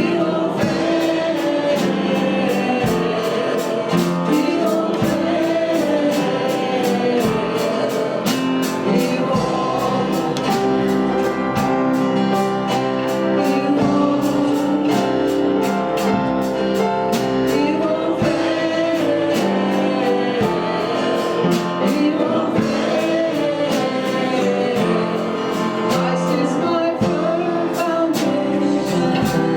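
Worship music: a congregation and worship band singing a hymn together, with instruments and a steady beat.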